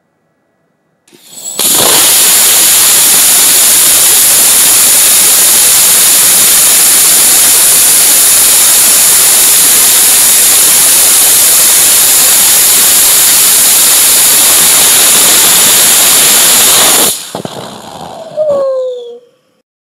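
A 200 N gaseous-oxygen/ethanol liquid rocket engine hot-firing. It lights about a second in and runs as a loud, steady hissing rush for about fifteen seconds while it is throttled through its thrust profile. It then cuts off sharply, leaving a quieter sputter and a short falling whistle before it fades out.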